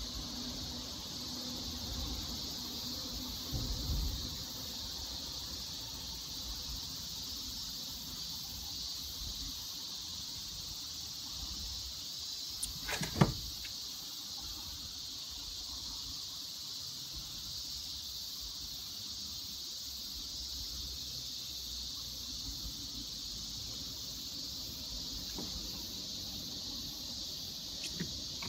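Steady, high-pitched drone of insects, with one short, sharp knock about halfway through.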